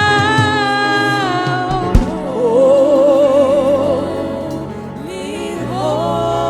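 Live gospel worship music: a singer holds long notes over a steady band accompaniment, one note wavering with strong vibrato a little after two seconds in. A single sharp thump sounds just before that.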